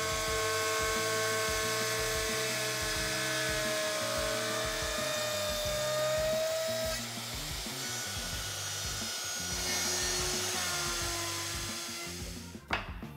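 Festool OF 1400 plunge router with a half-inch downcut spiral bit running and cutting a dado along a plywood drawer side, its whine shifting in pitch partway through, with a sharp knock near the end. Background music with a steady beat plays underneath.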